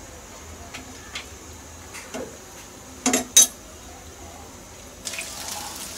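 Slotted metal spatula clinking against a nonstick frying pan: a few light taps, then two sharp clinks about three seconds in. Near the end a steady sizzling hiss of chicken sticks frying in oil comes up.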